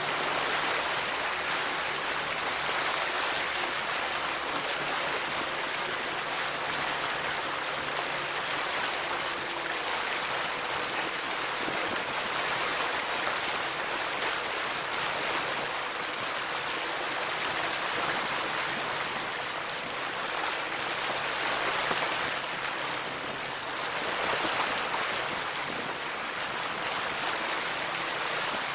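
Water rushing and splashing along the hull of a 1985 Sea Sprite motorboat under way, steady throughout, with the engine's drone faint underneath.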